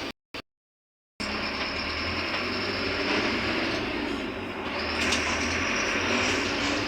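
Mercedes-Benz OF-1721 city bus running steadily, with engine drone and road noise. The audio drops out completely for about a second near the start, then the sound comes back.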